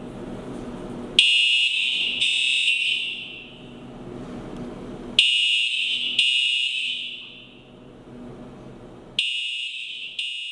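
Fire alarm sounding: a shrill, high-pitched tone that starts sharply twice about a second apart, repeating roughly every four seconds, each pair dying away with a ringing echo.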